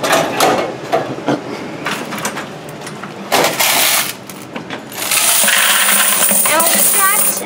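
Quarters pouring out of a laundromat machine's coin box into a bucket: scattered clicks and clinks, a short rush of coins about three and a half seconds in, then a longer, steady rush of coins over the last two seconds.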